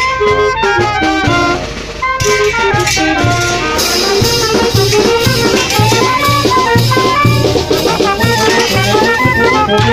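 Dance music playing loudly: melody lines over a steady low beat about twice a second, dipping briefly before picking up again.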